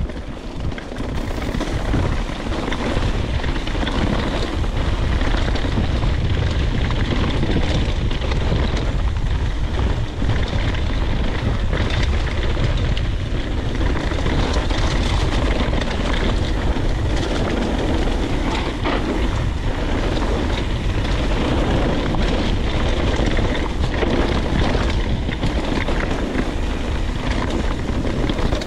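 Mountain bike riding a trail: steady wind rush on the microphone mixed with tyre rumble and bike rattle, building over the first two seconds and then holding steady.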